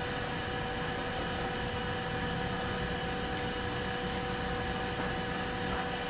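Steady mechanical hum with a constant hiss and a few held tones, unchanging throughout.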